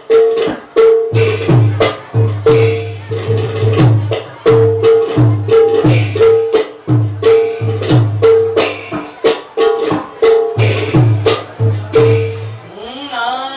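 Bhaona ensemble of khol drums and taal hand cymbals playing a brisk, driving rhythm, with deep drum strokes, a repeating ringing drum note and cymbal clashes. A singer's voice comes in near the end.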